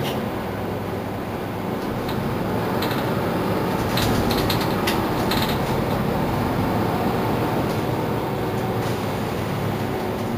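Mercedes-Benz Citaro C2 city bus running with a steady engine drone and road rumble, with a cluster of clicks and rattles about four to five seconds in.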